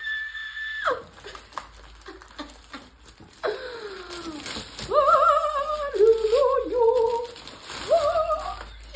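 A woman's high-pitched excited squeal cuts off about a second in, followed by a few seconds of clicks and rustling from handling a package. Then comes her wordless humming, rising and falling in pitch.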